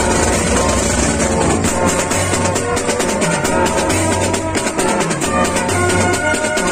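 Marching band playing: sousaphones sound held bass notes and other brass horns play over steady drumming.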